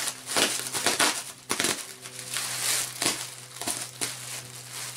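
Bubble wrap and packing tape crinkling and rustling in irregular bursts as the wrapping is cut open and handled.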